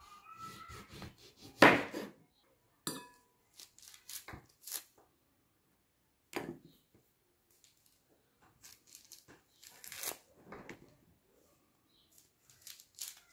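A knife cutting into an orange's peel, then hands tearing the peel off over a wooden cutting board: scattered short rips and handling knocks with quiet gaps between them, and one louder knock just under two seconds in.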